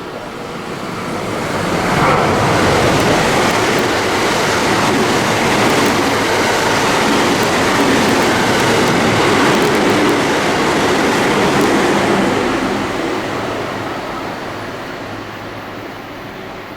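A train running through the station without stopping. The noise of its wheels on the rails builds over the first two seconds, stays loud for about ten seconds, then fades away.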